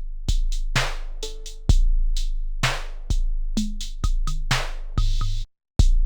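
Sampled hip-hop drum beat played back from an Akai MPC sampler: kick drums with a long booming low tail, sharp snare or clap hits and hi-hats, with a short pitched stab early on. The beat cuts out completely for a fraction of a second near the end, then starts again.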